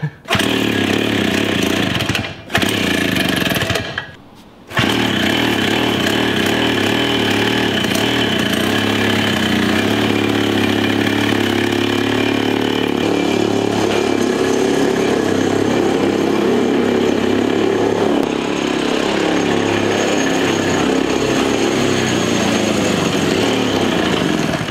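Pull-start two-stroke engine, originally from a concrete saw and now fed by a 22 mm Mikuni carburetor, running on a vintage minibike being ridden. Its pitch rises and falls with the throttle. It breaks off briefly twice in the first few seconds, then runs steadily; the rider thinks it needs more fuel, i.e. it is running lean.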